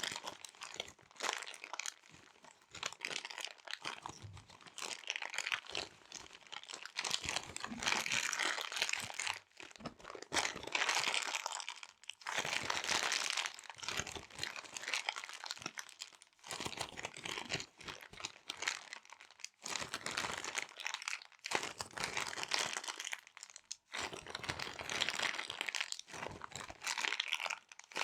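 Small resealable plastic bags crinkled and crumpled by hand in irregular bursts of crackling, with short pauses between handlings.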